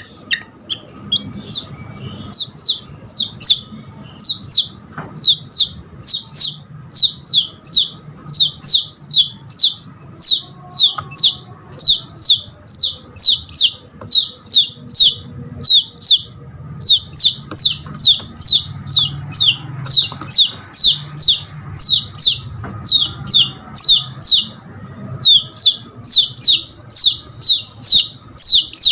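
Red junglefowl chick peeping over and over, high, loud, downward-slurred peeps at about two to three a second with a couple of brief pauses: the distress call of a lost chick calling for its mother.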